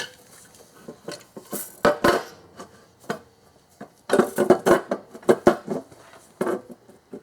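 Metal clunks and clatter as the upper intake plenum is worked down onto the mid intake and its gaskets. The knocks are scattered, with a dense run of them in the middle.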